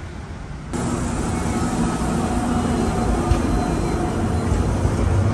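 Light traffic noise, then from about a second in a Hiroshima streetcar running through a tram stop: a steady hum of the motor with a rumble of the wheels on the rails, the rumble getting louder near the end.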